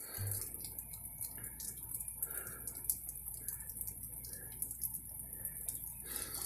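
Heavy rain pounding steadily, a constant hiss with scattered irregular drips and taps.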